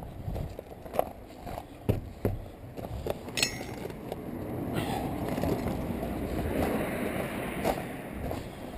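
Footsteps crunching on gravel, about one step a second. A short high squeak sounds about three and a half seconds in, and a broad rushing noise swells from about five seconds and fades near the end.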